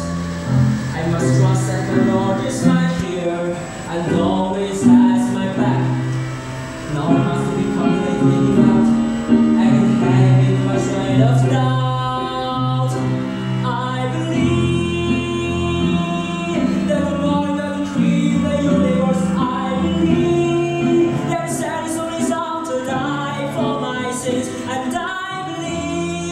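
A man singing a song, with long held notes, over instrumental accompaniment.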